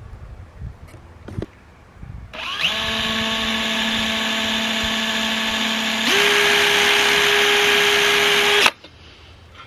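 Cordless drill motor running a titanium-coated step drill bit against thick rusty steel plate, with the bit failing to cut through. It spins up to a steady whine, steps up to a higher, louder pitch partway through, and stops suddenly near the end.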